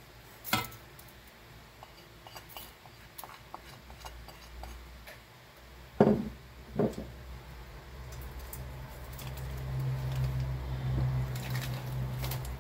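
Handling sounds of raw turkey wings and seasonings being worked by hand in a stainless steel pot: soft squishing and scattered light clicks, with a sharp knock just after the start and two louder knocks about six and seven seconds in. A low steady hum builds through the second half.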